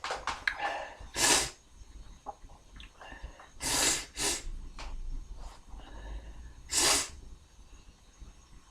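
A man sneezing in short, sharp bursts, the sharpest about a second in, near the middle and near the end, with quieter nasal breaths between. The sneezes are set off by a tickle from drinking beer.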